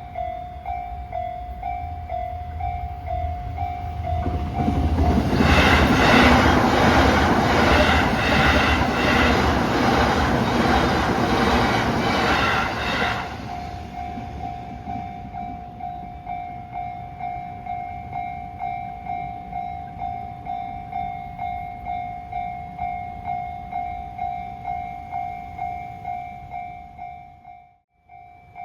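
Japanese level-crossing electronic warning bell ringing about twice a second while a JR Uchibo Line train passes for about nine seconds, its wheels clattering over the rail joints. After the train has gone the bell keeps ringing in a changed, steadier tone, the change this crossing makes when trains are signalled from both directions. The sound cuts out briefly near the end.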